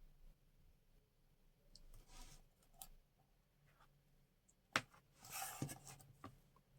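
Quiet handling of small jewelry-making materials on a work table: scattered faint ticks, then one sharp click near the end followed by a brief rustle.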